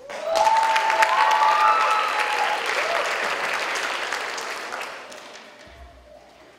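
Audience applauding, with a few whoops and cheers, starting suddenly and dying away over the last couple of seconds.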